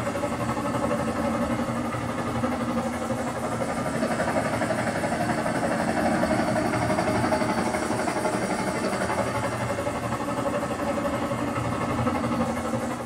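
Helicopter sound effect from the Dolby Atmos helicopter demo: a steady, even beating of rotor and engine, starting to fade out at the very end.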